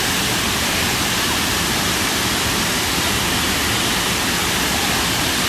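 Waterfall's steady rush of falling water, close and loud.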